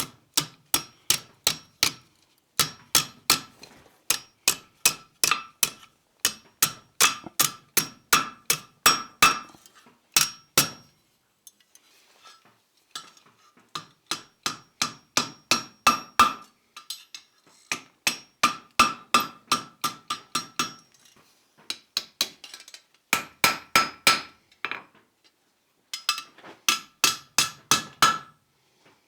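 Blacksmith's hammer striking hot steel bar on an anvil in quick runs of blows, about three or four a second. Each strike rings with a clear metallic note, and the runs are broken by short pauses, the longest about eleven seconds in.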